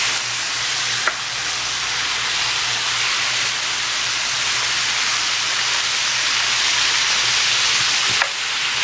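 Stir-fry vegetables sizzling steadily in a hot stainless skillet as tamari and sesame oil are poured in, with two light clicks, one about a second in and one near the end.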